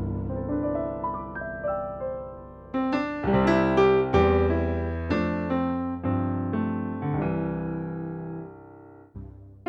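Piano sound on a synthesizer workstation keyboard, played as slow chords and melody notes that ring and decay. A louder passage starts about three seconds in, and the sound dies away to a brief gap near the end.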